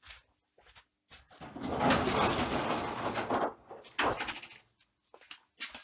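Garage roller shutter door being rolled up: a loud, dense run of noise lasting about two seconds, then a single knock about half a second after it.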